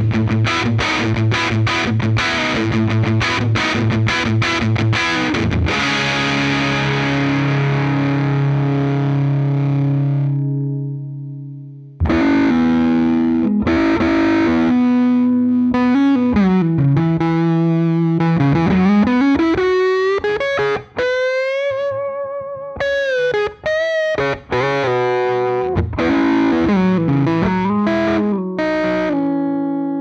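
Electric guitar played through a Moog MF Drive overdrive pedal. First a Les Paul plays a rhythmic chord riff that ends on a ringing chord and fades out. After a short pause a Stratocaster plays an overdriven lead line with wide string bends and vibrato, ending on a held chord.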